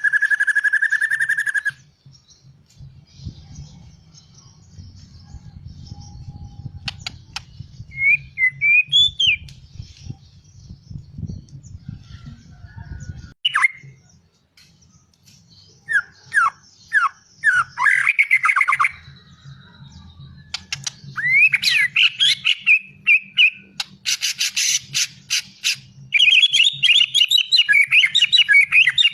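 A murai, the white-rumped shama, singing in separate phrases of gliding whistles, rapid clicking notes and fast trills, with pauses between them. It opens on one long steady whistle and ends on a fast run of notes. A faint low hum sits underneath.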